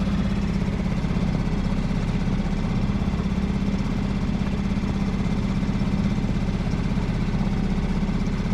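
Small boat's outboard motor running steadily at low trolling speed, an even hum with no change in pitch.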